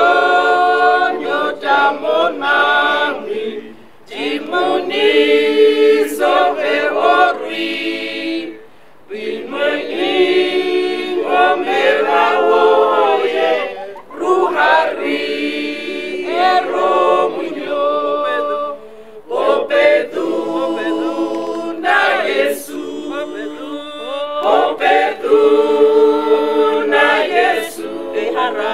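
Small mixed choir of men and women singing unaccompanied, in phrases of about five seconds with short breaks between them.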